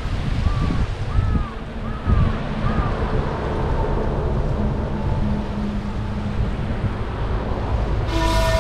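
Small waves washing onto a sandy beach, with wind buffeting the microphone as a steady rushing noise. A few short chirping calls come in the first few seconds, and a steady horn-like tone begins right at the end.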